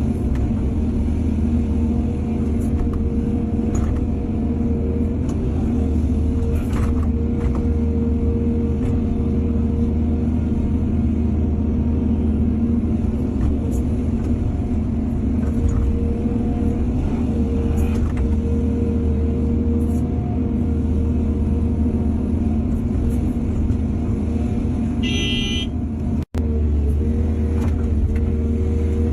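Heavy diesel engine of an excavator running steadily under load, with occasional knocks and scrapes. A short high-pitched tone sounds near the end, followed by a momentary break in the sound.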